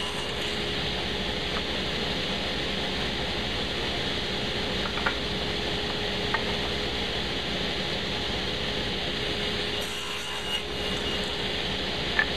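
A saw cutting pine scrap stock to length, over a steady hum, with a few short clicks.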